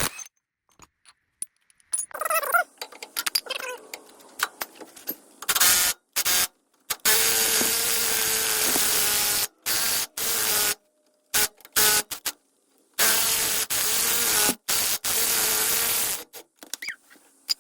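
Impact wrench on a 36 mm socket hammering the front CV axle nut loose, in several bursts of one to three seconds with a steady tone running through the rattle. A few tool clicks come before the first burst.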